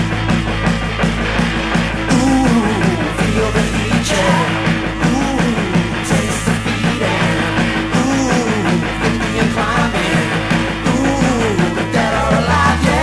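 Late-1970s punk / new wave rock song from a 7-inch single: a band with electric guitars, bass and drums playing steadily and loudly.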